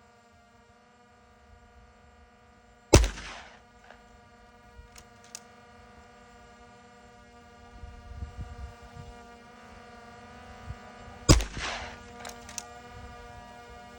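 Two shots from an AEA Challenger .30 calibre PCP air rifle firing slugs, about eight seconds apart. Each is a sharp crack with a short ringing tail, followed a couple of seconds later by a few light clicks. A steady hum runs underneath.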